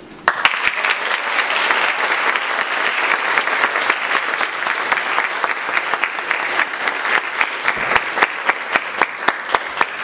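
Audience applauding, breaking out suddenly a fraction of a second in, with single louder claps standing out near the end.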